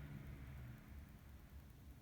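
A car going by outside, its low engine rumble fading away within the first second and leaving a faint low rumble close to silence.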